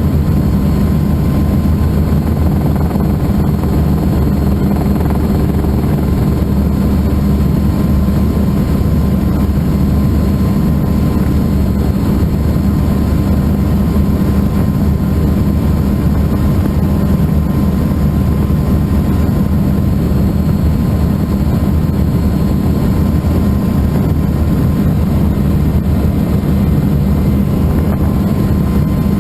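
Helicycle kit helicopter in steady cruise, heard from the pilot's seat: the Solar T62T-32 turbine and rotor give an even, unbroken drone with a thin steady high tone over it.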